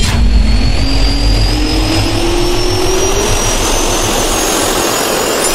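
Jet-turbine spool-up sound effect: a loud rushing noise with a whine rising steadily in pitch, which cuts off abruptly near the end.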